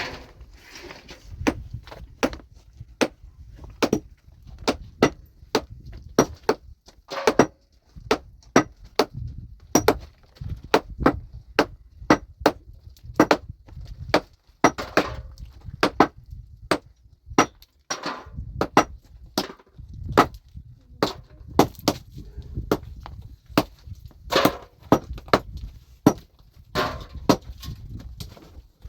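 Pickaxe striking rock again and again, breaking up stone: sharp irregular blows, about one or two a second.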